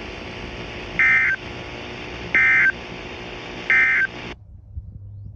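Three short bursts of Emergency Alert System end-of-message data tones (the SAME "NNNN" code sent three times), a little over a second apart, signalling the end of the weather radio alert. They sit over a steady radio hiss that cuts off suddenly about four seconds in.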